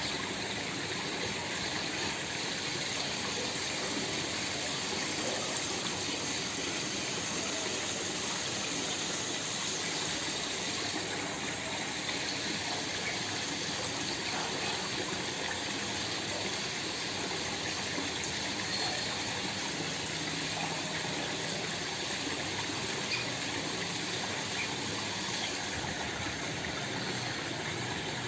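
Small waterfall: water splashing and gushing steadily.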